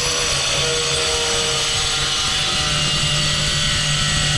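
Angle grinder running steadily, its blade cutting a hole in a hard tile: a high motor whine over cutting noise, with a low steady hum underneath.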